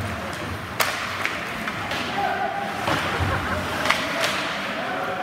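Ice hockey play: sharp clacks of sticks and puck on the ice and boards, about five over a few seconds, over crowd chatter.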